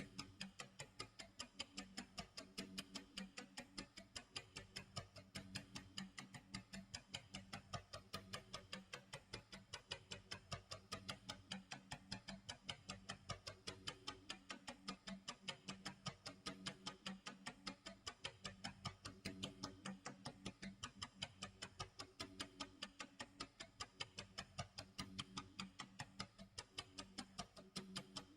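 Tick-tock clock sound effect: faint, steady, evenly spaced ticking that keeps on without a break.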